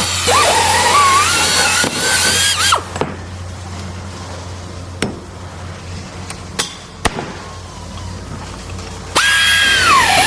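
Electric drill running under load, its whine dipping and climbing in pitch as it bites. It stops after about three seconds, leaving a low hum with a few sharp knocks, then starts again near the end.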